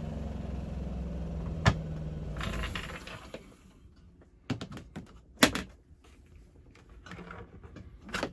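Spin motor of a Costway twin-tub washer's spinner humming, then winding down and going quiet after being switched off, with a sharp click under two seconds in. In the quieter second half come a few separate knocks and clatters.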